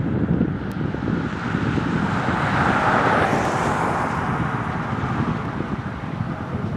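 Wind buffeting the microphone, with a vehicle passing that swells and fades about halfway through.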